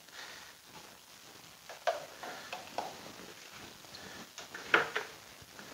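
Kitchen handling sounds: a metal spoon and raw chicken drumsticks knocking against glass bowls as marinade is spooned over the drumsticks and more are moved across. A few short, sharp clinks; the two loudest come about two seconds and five seconds in.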